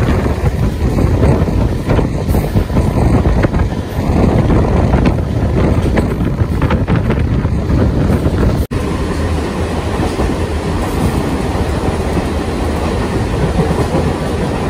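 MEMU electric multiple-unit train running at about 99 km/h: continuous wheel-on-rail running noise with rapid rail clicks in the first half. There is a brief dropout about nine seconds in, after which the running noise is steadier.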